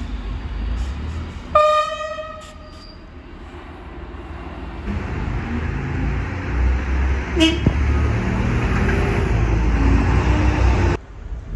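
A DSB IC3 diesel train's air horn gives one blast of about a second. Then another IC3 passes with a low rumble and gives a very short toot on its electric horn about halfway through. The train sound cuts off abruptly near the end.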